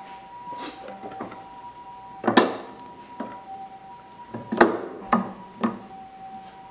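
Four sharp knocks from the old okoshi cutting machine and its blade working slabs of awa-okoshi: one about two seconds in, then three in quick succession past the middle. A faint steady two-pitched hum runs underneath.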